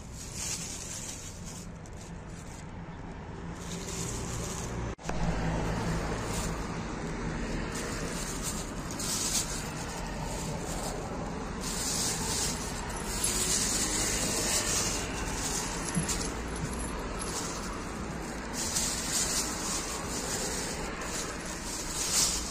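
Thin plastic bags rustling in uneven bursts as bagged stuffed toys are handled in a cardboard box, over a low steady rumble. The sound cuts out for an instant about five seconds in.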